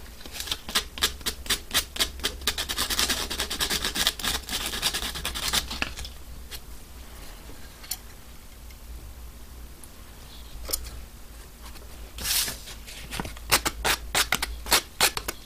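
Aluminium oxide sandpaper rubbed over the snipped end of a plastic quadcopter propeller blade to smooth and round the cut edge. Quick scratchy strokes, several a second, run for about the first six seconds. After a quieter pause come a few more strokes near the end.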